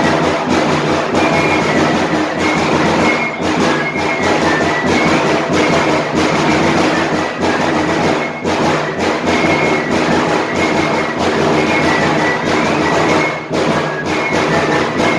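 Live Romanian folk music led by large bass drums beating a steady rhythm, with short, high whistle-like melody notes over it.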